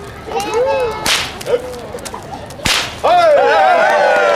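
Two sharp whip cracks, about a second and a half apart, then a crowd bursting into cheering and whooping about three seconds in.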